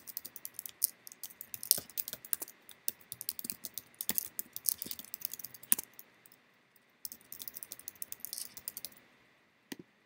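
Typing on a computer keyboard: a fast run of keystrokes, a pause about six seconds in, then a second shorter run, followed by a single mouse click near the end that submits a sign-up form.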